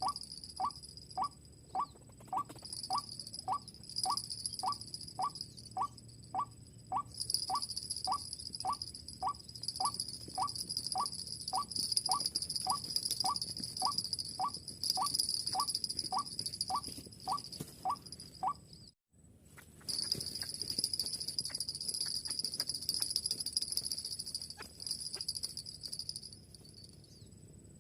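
White-breasted waterhen call: a short rising note repeated evenly, about three every two seconds, stopping about two-thirds of the way through. Under it, insects buzz steadily and loudly in a high pitch, broken once by a brief gap.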